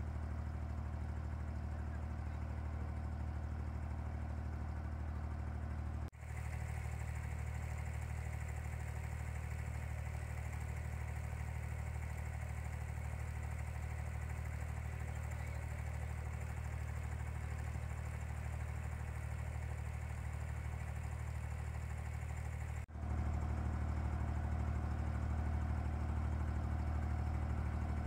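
Boat engine running steadily under way, a constant low drone. It drops out briefly twice, about six seconds in and again near the end, and is louder after the second break.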